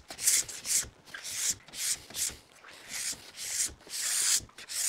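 Plastic ski scraper drawn repeatedly along a ski base, scraping off hard matte black graphite wax in short strokes about two a second.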